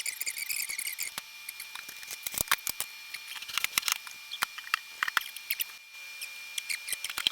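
Sped-up kitchen handling noise: a rapid, irregular run of sharp clicks and clatter from containers and utensils being moved, with high chirping squeaks through the first second.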